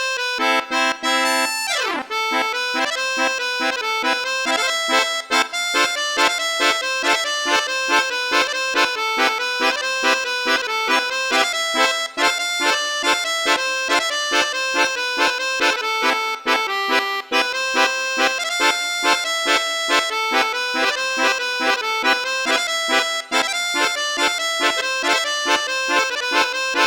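Electronic melodica (pianika) music in the Indonesian 'telolet' bus-horn style, made in FL Studio Mobile: layered reedy chords and melody with a steady pulse about twice a second. A quick downward swoop about two seconds in.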